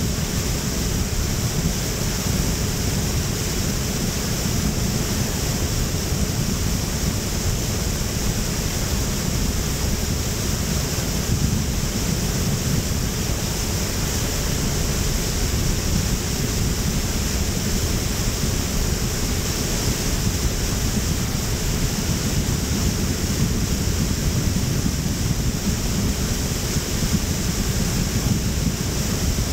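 Steady rushing of wind and water, heaviest in the low end, with a constant high hiss above it.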